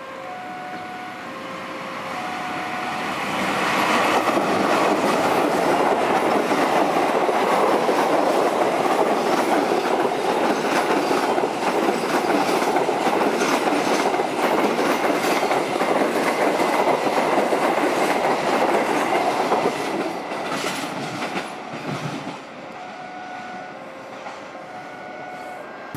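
Express passenger train hauled by a CC 206 diesel-electric locomotive passing at speed: the rumble builds over the first few seconds, holds steady with rapid clickety-clack of the wheels over rail joints, then fades away near the end.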